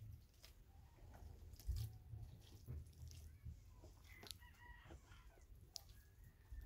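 Faint chicken calls, including rooster-like crowing, about four to five seconds in and again near the end, over a low rumble and scattered small clicks.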